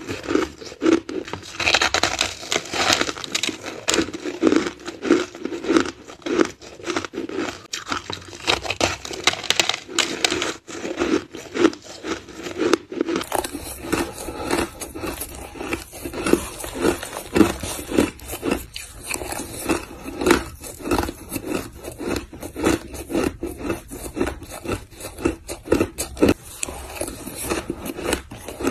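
Close-up crunching and chewing of hard ice, in quick repeated crunches about two a second. About thirteen seconds in the sound changes to the crunching of spoonfuls of shaved ice.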